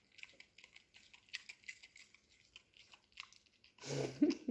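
Small dog chewing a dried rabbit-ear treat: a run of quick, irregular crunches, with a short louder noise near the end.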